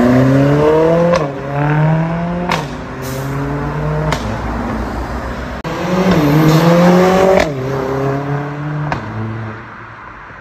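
Mercedes-AMG A45 (W177) 2.0-litre turbocharged four-cylinder with a sport mid-pipe exhaust, accelerating hard through the gears. The engine note rises, then drops at each upshift with a short sharp crack. There are two separate pulls; the second fades into the distance near the end.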